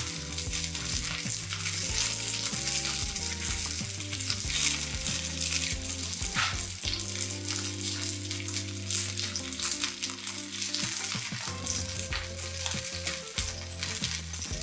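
Peach halves sizzling on a hot ridged griddle pan: a steady hiss with fine crackling and a few sharper ticks.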